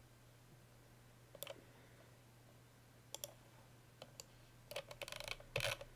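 Computer mouse and keyboard clicks while editing in Blender: single clicks and a pair in the first half, then a quick run of clicks near the end. A faint steady low hum runs underneath.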